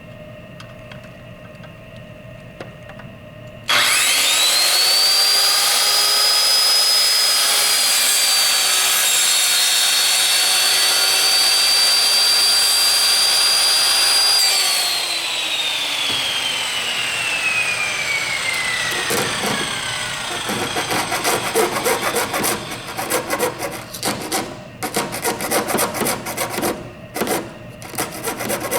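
A power saw starts suddenly about four seconds in and runs at a steady high whine for about ten seconds, making the final cut through an acrylic sheet. It is then switched off and its whine falls steadily in pitch as it spins down. Irregular scraping and rubbing follows near the end.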